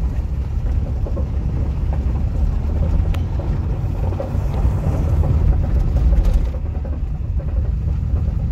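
Holden VL Commodore being driven: a steady low rumble of engine and road noise heard from inside the cabin.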